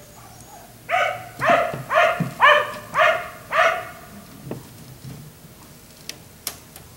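Black Labrador barking six times in quick succession, about two barks a second. Two short, sharp clicks follow near the end.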